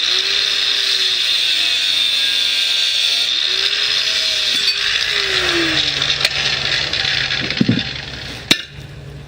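Handheld power tool running hard with a loud, hissing whine, its motor pitch sagging and recovering as it works under load. It stops with a sharp knock near the end.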